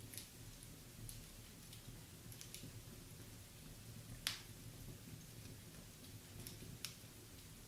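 Wood fire burning in a fireplace: a low steady rumble of the flames with scattered sharp crackles and pops from the burning logs, the loudest a single crack about four seconds in.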